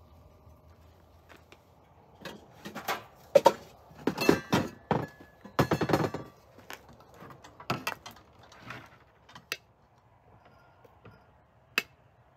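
Clatter of hard objects being handled: a quick, irregular run of knocks and clinks for several seconds, then one sharp click near the end.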